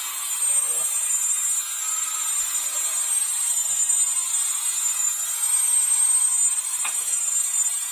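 Vevor ultrasonic record cleaner running with records in its water tank: a loud, steady hiss with a high, piercing whine on top. A few faint clicks sound over it.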